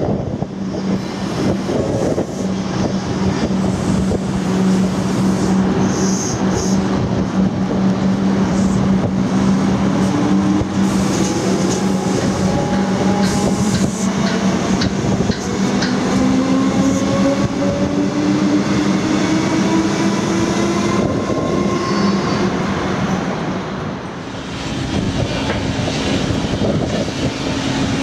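Comeng electric suburban train with a steady low hum, then traction motors whining in several rising tones as it accelerates away.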